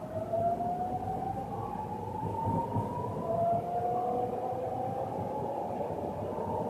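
BART train's electric propulsion whining as the train accelerates away from the station, heard from inside the car: two steady tones glide slowly upward in pitch over the rumble of the car.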